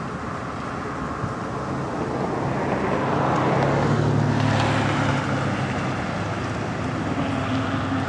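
ACA Allertor electromechanical siren with rotating horns sounding, swelling louder about three to four seconds in as the horns sweep round, with wind on the microphone.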